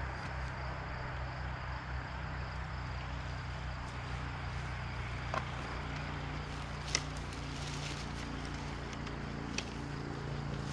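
Dirt bike engine idling steadily, with three short sharp clicks about five, seven and nine and a half seconds in.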